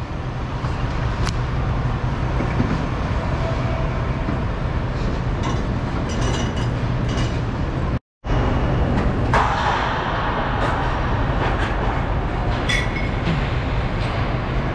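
Diesel engine idling steadily, with a few light metallic clinks. The sound cuts out for a moment about eight seconds in.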